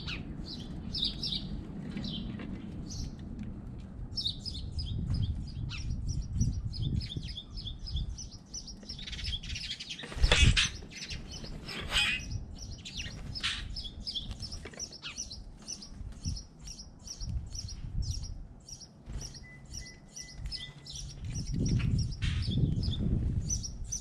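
Small songbirds chirping, many short high chirps in quick succession, over a low rumble. About ten seconds in there is one loud, brief noise, louder than the chirps.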